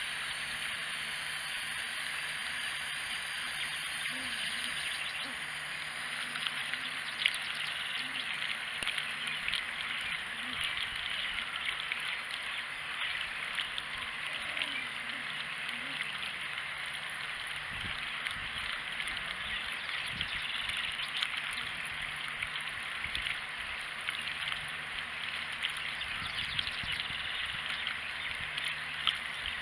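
Garden hose running into a plastic watering can, water trickling and splashing steadily, with a cat lapping at the water with small ticks.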